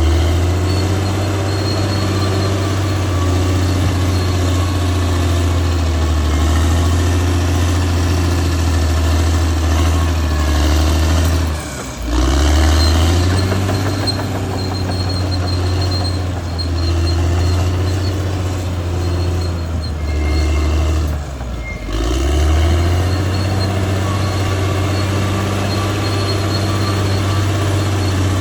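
Caterpillar D6R XL bulldozer's diesel engine running steadily with a deep hum, briefly dropping off about 12 and 22 seconds in before picking up again.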